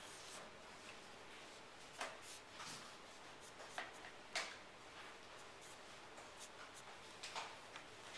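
Prismacolor felt-tip marker scratching across drawing paper in a few short strokes, over a faint steady hiss.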